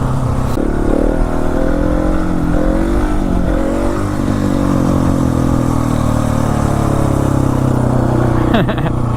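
Husqvarna 701 Supermoto's single-cylinder engine pulling away and running at a steady speed while being ridden, revs climbing about a second in and dropping sharply near the end.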